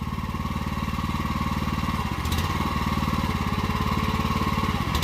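Predator 420 single-cylinder four-stroke engine on a towable backhoe running steadily, driving the hydraulic pump while the bucket is worked.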